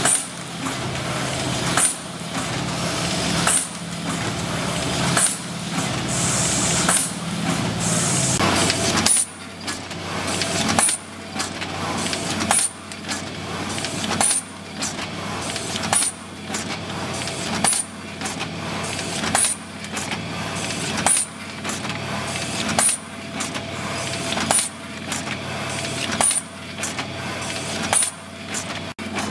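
Horizontal premade-pouch packing machine running: a sharp mechanical clack about every 1.7 seconds as it indexes through its cycle, with lighter clicks and a steady machine hum in between. A lower hum drops away about nine seconds in.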